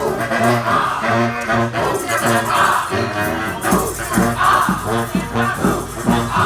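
Community street band playing live: brass horns carrying a melody in short, punchy notes over a steady drum beat.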